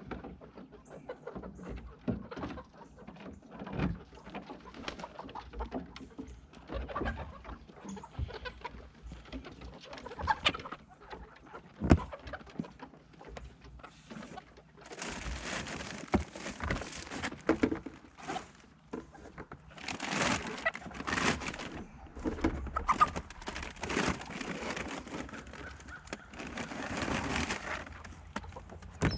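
Hens clucking, mixed with scattered knocks and clicks and longer stretches of rustling noise in the second half.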